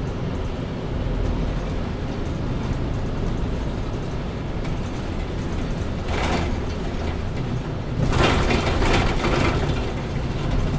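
MAN A20 Lion's City Ü city bus running, its engine a steady low rumble. A short hiss comes about six seconds in, and a longer, louder hiss about two seconds later.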